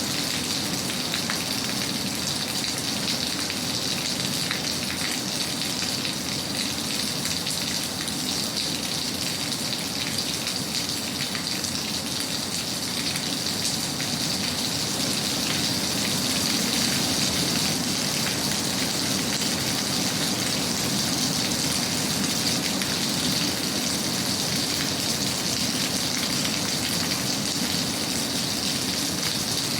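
Steady rain falling, an even, continuous hiss made up of many fine drop ticks.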